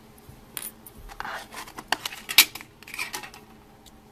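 Hands handling a small metal hair clip and setting things down on a tabletop: a series of sharp clicks and light metallic clinks with some rustling, the loudest click about two and a half seconds in.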